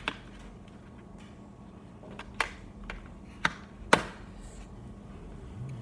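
Crayons from a colouring set being set down one by one into their case: about five short, sharp taps and clicks spread over a few seconds.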